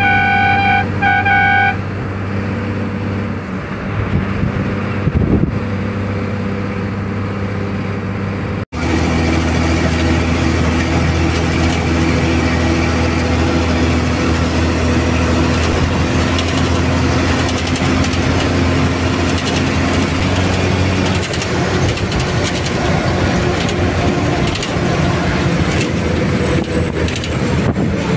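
Cabin sound of a moving bus: the engine drones steadily under road noise. A horn blares in a few short blasts at the start and briefly again near the end. The sound cuts out for an instant about nine seconds in.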